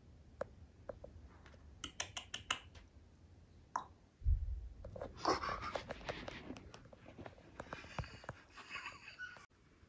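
Faint scattered rustling and scratching, with a quick run of sharp clicks about two seconds in and a single low thump a little after four seconds.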